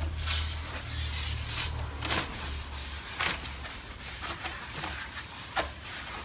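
Aerosol brake cleaner hissing in two spray bursts onto a new brake rotor, then paper and rag rustling with a few soft knocks as the rotor is wiped clean, over a low steady hum.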